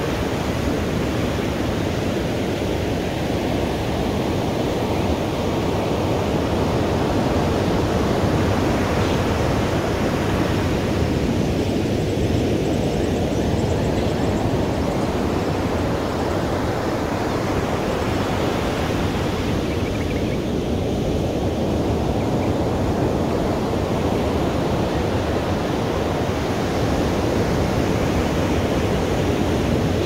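Ocean surf: a steady wash of waves on a beach, with breakers swelling and falling back every eight seconds or so.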